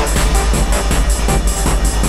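Very noisy experimental electronic music: a dense wash of machine-like noise over a deep steady bass, pulsing in a fast even rhythm.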